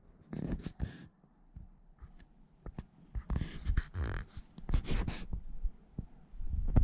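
Close handling noise on the camera: skin and fingers rubbing and knocking against it, giving irregular rustles, dull thumps and sharp clicks in several bursts.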